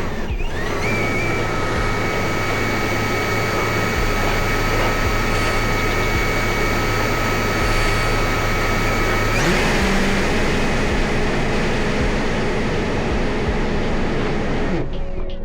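Electric lift fan of an RC hovercraft, driven by a brushless motor, running steadily with a high whine over rushing air. The whine changes pitch about nine and a half seconds in.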